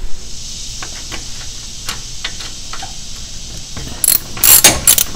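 Socket ratchet clicking in quick strokes near the end, running a 9/16 bolt back into a lawn tractor's steering assembly. Before it, a few scattered metal clicks over a steady hiss.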